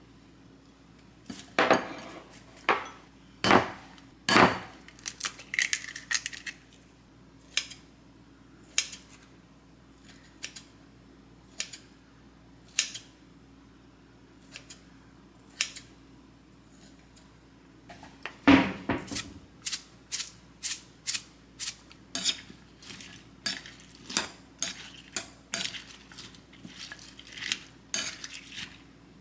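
Utensils clinking and knocking against dishes and cookware in food preparation: scattered sharp clinks at first, then a quicker run of about two clinks a second in the second half.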